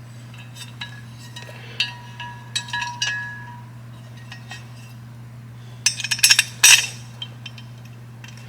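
Light metal clinks and taps of cam-cover bolts and the cover being handled and set against the engine, with a louder cluster of rattling clinks about six seconds in, over a steady low hum.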